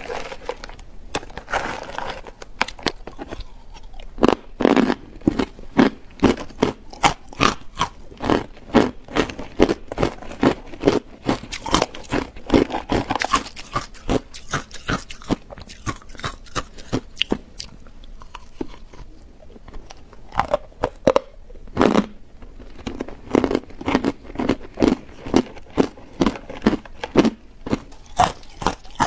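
Close-up crunching and chewing of hard ice chunks coated in matcha powder, a rapid, uneven run of crisp cracks as the ice is bitten and broken between the teeth. The crunching eases off for a couple of seconds past the middle, then picks up again.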